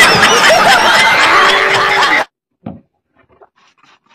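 Studio audience laughing and clapping, a crowd of mixed voices, which cuts off suddenly about two seconds in.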